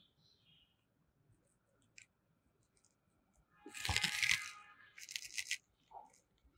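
A marker scraping and squeaking on a whiteboard in one loud stroke about four seconds in, followed by a few short scratchy strokes.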